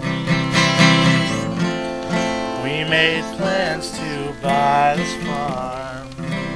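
Acoustic guitar music: chords strummed, with a wavering melody line played over them in the middle.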